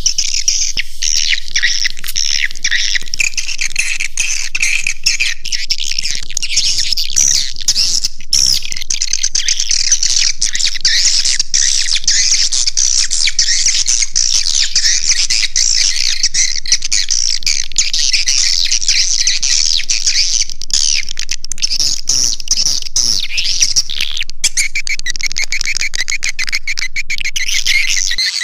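Swiftlet lure-call recording: a dense, continuous chorus of high-pitched edible-nest swiftlet chirps and twitters, played to draw swiftlets into a swiftlet house.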